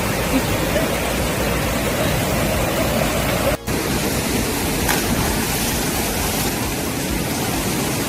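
Rushing water of a mountain stream cascading over granite rocks: a steady, loud rush that breaks off for an instant a little over three and a half seconds in.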